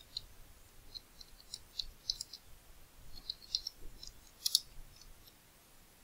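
Computer keyboard being typed on: irregular key clicks, a few a second, with a louder clatter of keys about four and a half seconds in.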